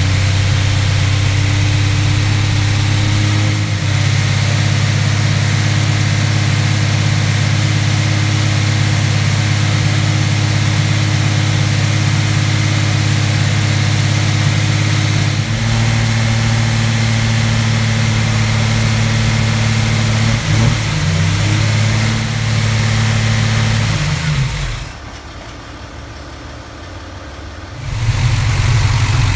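Freshly rebuilt Chrysler Hemi 245 straight-six running steadily at a raised speed, held at about 2,000 rpm to break in the new cam. Its note steps slightly a few times and goes much quieter for about three seconds near the end.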